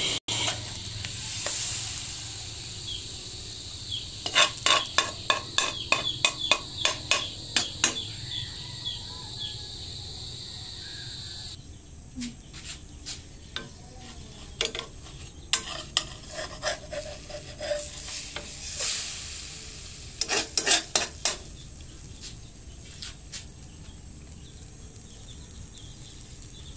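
Pancake sizzling in a nonstick pan while a plastic spatula scrapes and taps against the pan in quick runs of strokes, loosening and turning the pancake. The sizzle drops off sharply about halfway through; after that the spatula strokes come more scattered.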